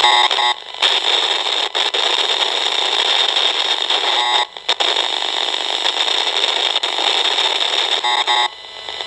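Loudspeaker of a handheld Esmog-Spion electrosmog meter giving out a loud, steady hiss and crackle, with a brief rapid ticking near the start and again near the end, and the noise cutting out for a moment a few times. It is the meter's audio rendering of the high-frequency interference it picks up at the mains plug of a media box fed by an antenna cable.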